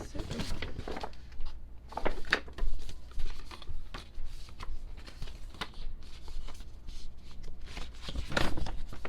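Paper and card album inclusions being handled, with irregular rustling, crinkling and light knocks.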